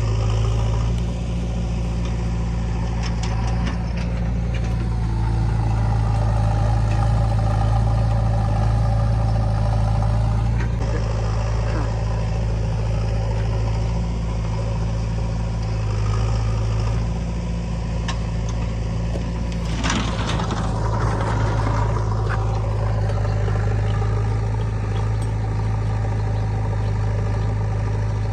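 Heavy-machinery diesel engine running steadily at a constant low pitch. About twenty seconds in there is a brief burst of noisy, clattering sound over it.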